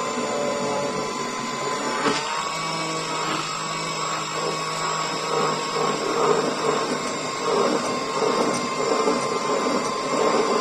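Electric stick blender running steadily in a tall glass, blending sweetened milk. There is a click about two seconds in, after which the motor's tone shifts slightly.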